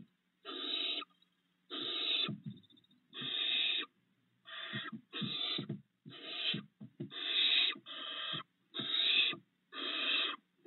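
Barn owl nestlings giving a string of about ten harsh, rasping hisses, each about half a second long with short gaps between: the snoring begging call of barn owl chicks. Soft low thumps come in the gaps.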